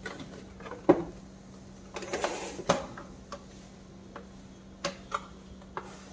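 Hard plastic parts of a Kärcher WD6 Premium vacuum's motor-head housing being handled and fitted together: a sharp knock about a second in, the loudest sound, then a short scraping rustle and a knock around two to three seconds in, and a few light clicks near the end, over a faint steady hum.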